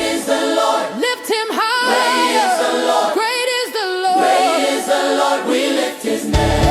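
Afro gospel song in an a cappella break: several voices sing in harmony with the bass and drums dropped out. The full band with bass and drums comes back in near the end.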